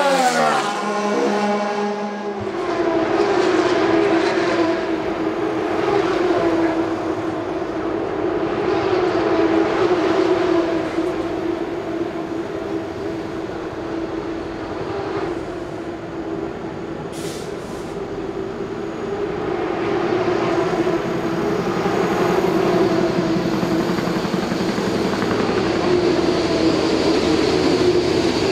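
Steady mechanical drone holding one pitch with slow swells in loudness, like engines or machinery running. In the first two seconds a pitched sound glides downward before the drone settles.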